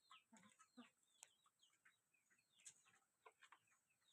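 Birds chirping: many short, high, downward-sliding chirps in quick, irregular succession, with a few sharper clicks among them.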